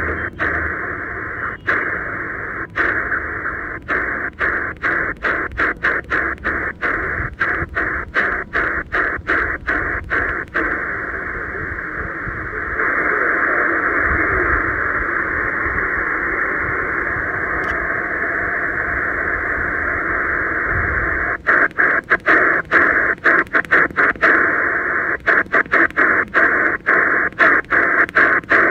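Choyong LC90 radio's speaker hissing with band noise in upper-sideband mode on the 20-metre ham band, no station coming through. The hiss is chopped by brief dropouts, roughly three a second, as the tuning knob steps up in frequency. For about eight seconds in the middle it runs steady and a little louder.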